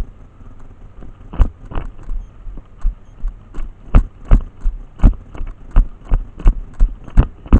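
A person's running footsteps: regular thuds at about three steps a second, starting about a second and a half in.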